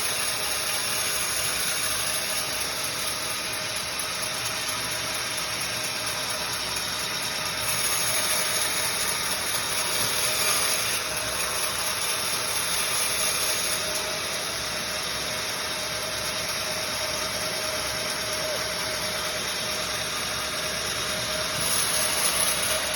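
Sawmill machinery running steadily, a dense mechanical noise with a constant whine, growing a little louder and brighter for a few seconds twice, about a third of the way in and near the end.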